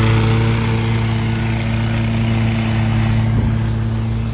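Commercial lawn mower engine running steadily at a constant throttle, a strong, even hum.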